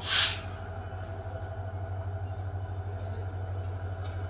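Diesel train engine running with a steady, slightly pulsing low hum. A short loud hiss sounds right at the start.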